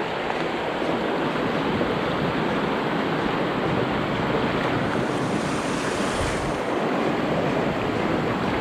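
Shallow rocky river running over stones in a steady rush of water.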